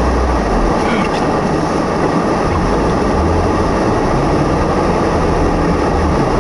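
Steady loud rushing noise inside a car's cabin, with a low engine rumble that swells and eases.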